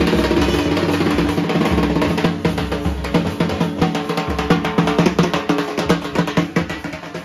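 Dhak, the Bengali barrel drums, beaten with thin sticks in a fast, dense rhythm of strikes over a steady ringing drone.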